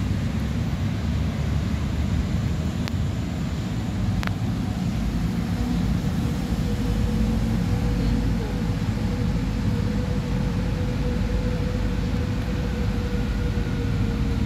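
Steady low outdoor background rumble. A faint steady hum joins it about five seconds in, and there are two faint clicks near the start.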